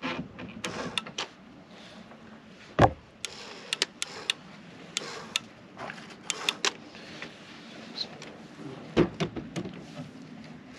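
Clicks and knocks of tools, screws and timber being handled during planking work, with two heavy thumps, one about three seconds in and one near the end.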